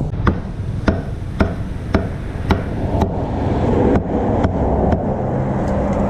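Regular chopping strikes, about two a second, typical of a cleaver or knife cutting meat on a wooden board, over a steady low rumble.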